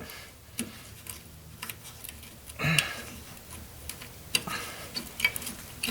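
A few small, sharp clicks and taps spread irregularly over several seconds: a bayonet-base turn signal bulb being worked out of its socket in the lamp housing.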